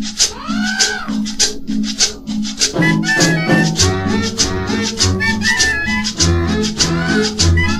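Instrumental cumbia dance music with a steady shaker rhythm and no singing; a sweeping rise-and-fall sound comes about a second in, and a bass line comes in about four seconds in.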